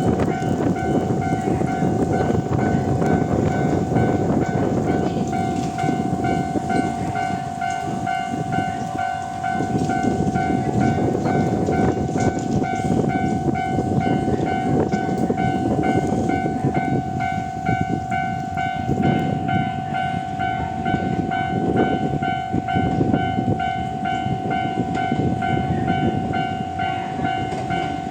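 A Japanese railway level-crossing warning bell sounds its usual electronic alarm without a break. Strong wind buffets the microphone with a gusting rumble.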